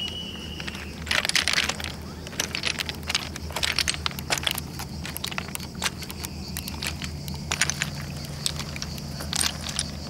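Footsteps on a beach of loose, flat shale stones: irregular short crunches as the slabs shift and knock together under each step.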